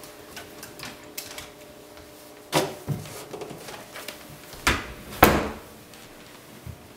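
A few separate knocks and bumps at a closet door being handled, the loudest about five seconds in, over a faint steady hum.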